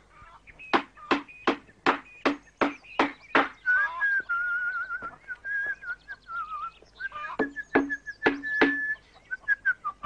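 A hammer driving nails into a wooden fence post, about three blows a second, in two runs, with a pause between them. From about a third of the way in, a man whistles a warbling tune over the blows.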